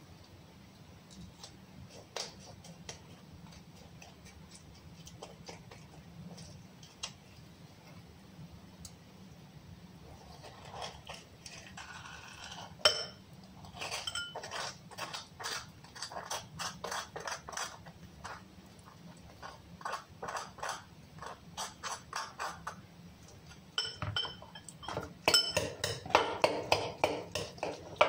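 A metal utensil scraping and tapping as avocado flesh is scooped from its skin, then clinking against a small glass bowl as the avocado is worked in it. The clinks come quicker and louder over the last few seconds.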